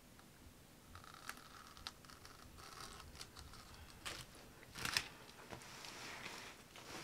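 Faint handling noise from nitrile-gloved hands on a plastic-covered work table: light rustling and crinkling with scattered clicks, and a louder crackling scrape about five seconds in.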